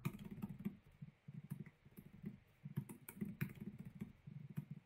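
Faint computer keyboard typing: quick runs of keystrokes with brief pauses between them.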